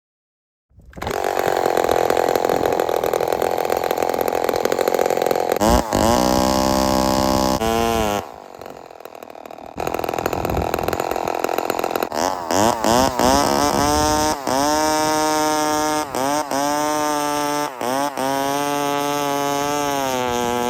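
Lombard 5.1 cubic-inch two-stroke chainsaw with a 36-inch bar, coming in loud about a second in and running at high revs. Around eight seconds in it falls back to a low idle for a couple of seconds, then is revved up again and again, the pitch rising with each blip and dipping briefly between them.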